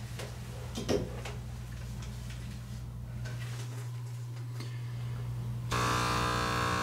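Steady low hum with scattered faint clicks and ticks, the sharpest about a second in. About six seconds in, a louder steady buzzing sound of many held tones starts.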